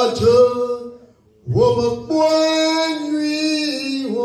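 A singer holding long, drawn-out notes with no accompaniment heard: one phrase ends about a second in, and after a short breath a second, longer phrase is held on.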